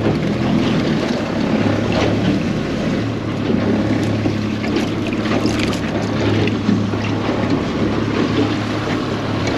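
Boat's outboard motor running steadily at a low, even hum, with wind buffeting the microphone and a few small knocks on the boat.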